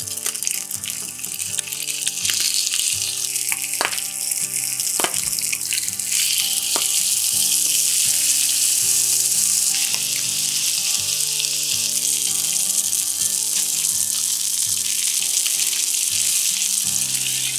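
Marinated yellowtail fillets sizzling in hot oil in a frying pan, skin side down first and then the flesh side. There are a few sharp clicks and taps as the pieces are placed and turned.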